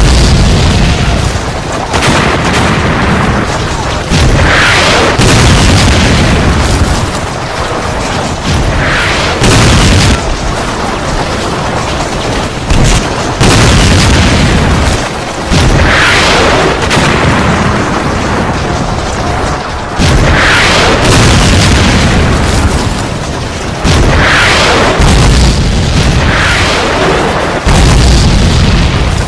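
Battle sound from a war film: a string of heavy explosions every two to four seconds, each followed by a long rumbling tail, with shouting voices heard between them.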